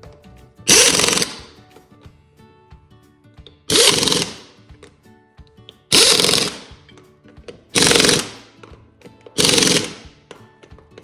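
Five short, loud bursts of a rattling power tool, each under a second, over quiet background music.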